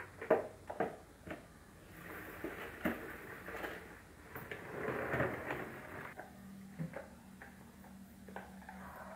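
Spin mop being wrung in its plastic bucket: sharp plastic knocks as the handle is pumped, and two spells of whirring as the mop head spins in the basket, about two and about five seconds in.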